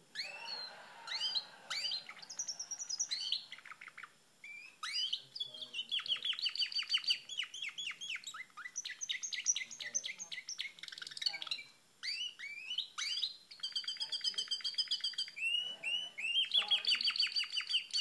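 Domestic canary singing a long song of rapid trills, phrase after phrase of fast repeated notes, with short breaks about four and twelve seconds in.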